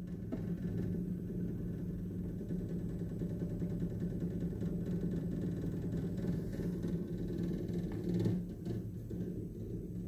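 Samsung refrigerator running with a steady low hum and rumble, swelling briefly about eight seconds in. The owner takes the noise for a sign that the fridge is defective.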